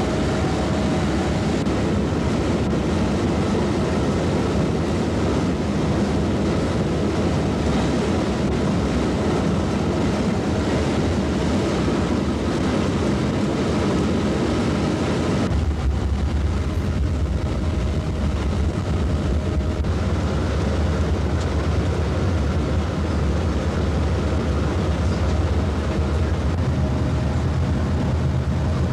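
Steady engine and road rumble inside a moving coach. About halfway through it changes suddenly to a deeper rumble with less hiss.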